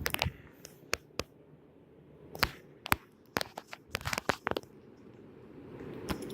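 A run of sharp clicks and knocks, scattered and then clustered, followed by a low steady rushing noise that builds up near the end.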